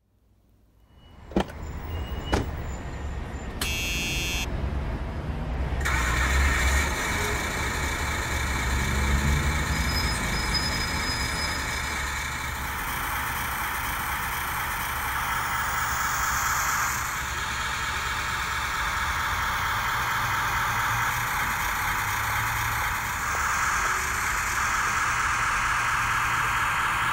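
Truck engine sound running steadily with a low rumble, after two sharp knocks near the start; from about six seconds in a steady whine rides on top.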